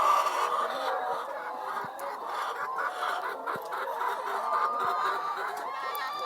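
A flock of laying hens clucking and calling together, many overlapping voices in a steady chorus.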